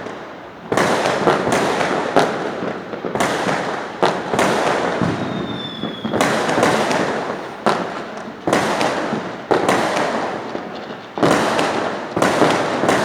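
Fireworks going off in quick succession, a new loud burst about every second, each trailing off into a noisy decay before the next.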